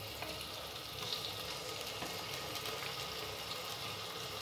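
Sliced onions, garlic paste and whole spices frying in oil, a faint steady sizzle.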